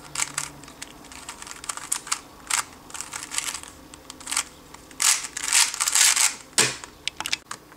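Rubik's-type 3x3 speed cube being turned quickly with fingertricks: a run of light plastic clicks and clacks as the layers snap round, denser and louder about five seconds in.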